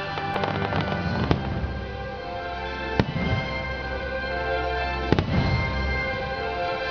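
Fireworks bursting over the show's music soundtrack: sharp bangs about a second in, at about three seconds, and a close pair about five seconds in, with crackling between, over sustained music.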